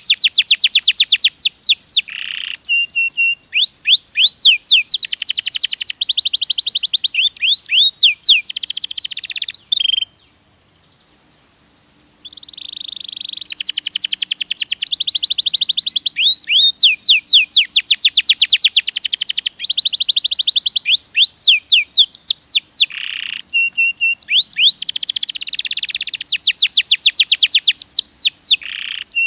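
Domestic canary singing: fast rolling trills and rapid runs of repeated high notes, pausing for about two seconds midway before starting again.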